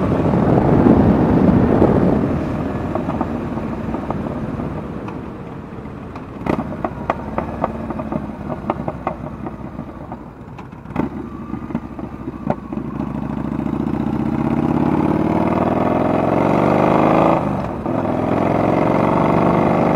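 Yamaha Bolt's 942 cc V-twin running through a homemade, unbaffled slip-on drag pipe. It is loud at first, then rolls off on engine braking with a string of sharp pops from the exhaust. It then accelerates again, its pitch rising, with a brief break near the end, typical of a gear change.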